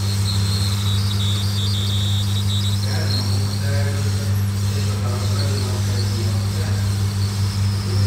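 Hot-air rework station blowing on a phone motherboard: a steady electric hum under an even airflow hiss, as the board is heated to desolder a small coil (inductor).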